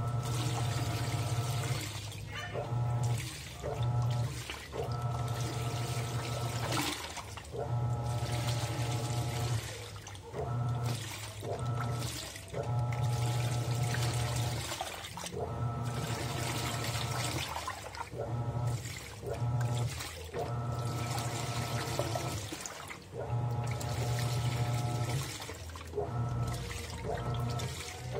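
Panasonic NA-F160B5 top-load washing machine agitating a full load of clothes in water: the motor hums in repeated strokes of one to three seconds with short pauses between them as the pulsator turns back and forth, with water sloshing throughout.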